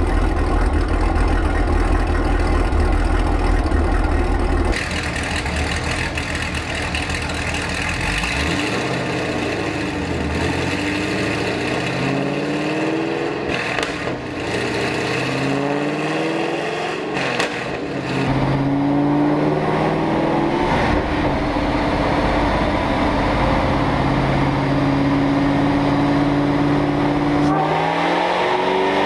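Supercharged 6.2-litre LSA V8 of a Camaro ZL1 on a chassis dyno. It starts with a deep low rumble. After about 5 s come revving pulls that rise in pitch in short steps through the gears, then from about 18 s one long full-throttle pull whose pitch climbs slowly and quickens near the end.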